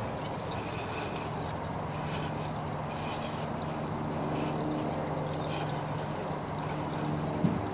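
A steady low hum runs throughout, with faint, scattered high chirps from small birds in an aviary over it. There is a brief knock near the end.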